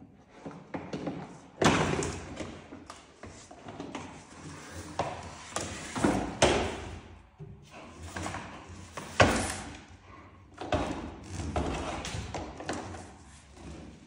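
A puma handling and carrying a canister vacuum cleaner: irregular thumps and knocks of the vacuum's plastic body and hose against the tile floor and windowsill, with scraping and rustling in between. The vacuum is not running. The loudest knocks come about two seconds in, around six seconds in and a little after nine seconds.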